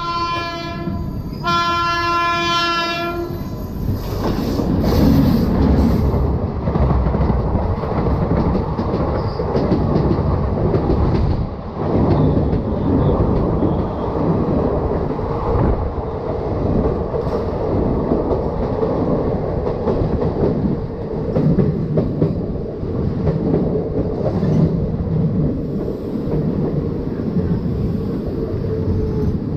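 Locomotive horn sounding twice, a short blast and then a longer one that stops about three seconds in, followed by the steady rumble and clickety-clack of a passenger train's LHB coaches running on the rails.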